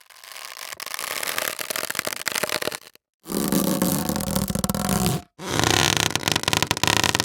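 Three cartoon sound effects in a row, separated by brief silences. The first is a fast rattle that grows louder over about three seconds, and two shorter rattly effects follow.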